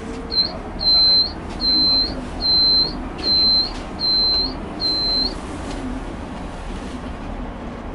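Seven evenly spaced high beeps, each a single steady tone about half a second long, over the steady low rumble of the Roosevelt Island Tram cabin in motion.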